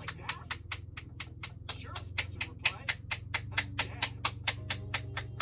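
A rapid, even run of sharp clicks, about five or six a second, over a low steady hum.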